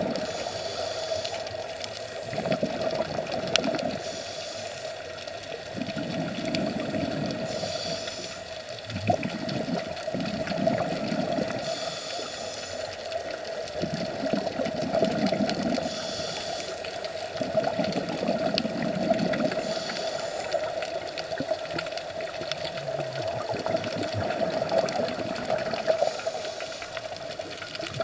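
Underwater water noise recorded by a camera below the surface, with a steady hum and a hiss and a low swell taking turns in a slow cycle of about four seconds.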